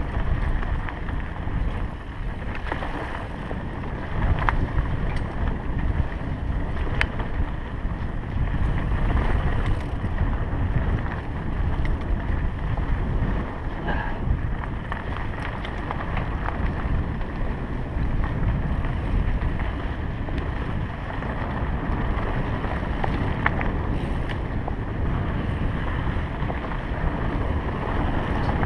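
Wind buffeting an action camera's microphone on a mountain bike riding fast down a dirt singletrack, with tyres rolling over dirt and stones and occasional sharp clicks and rattles from the bike.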